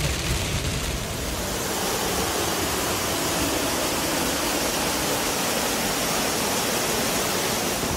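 Small waterfall pouring over rock into a foamy pool: a steady, even rush of water.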